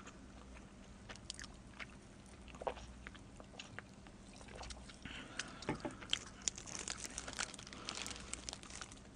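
Soft sips and swallows from a can of cola, then biting into and chewing a slice of pepperoni-and-pineapple pizza close to the microphone. The small mouth clicks grow busier over the last few seconds.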